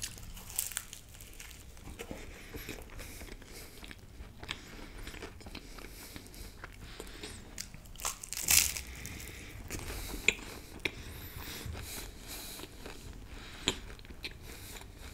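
Close-miked biting into and chewing a flaky puff-pastry patty: a run of small crisp clicks, with a louder bite about eight and a half seconds in.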